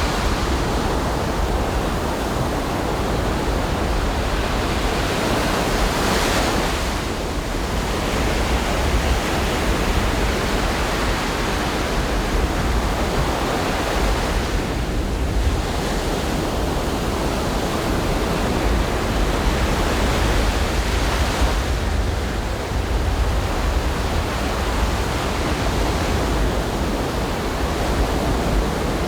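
Ocean surf washing onto a beach in a continuous rush, swelling brighter twice as waves break, with a low rumble of wind on the microphone.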